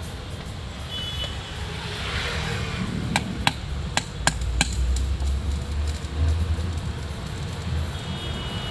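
Five sharp hammer strikes, about a third of a second apart, on the metal housing of a Skoda Rapid starter motor, over a steady low rumble of road traffic.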